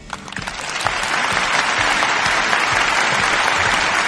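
Applause from a crowd, swelling in over the first second and then steady.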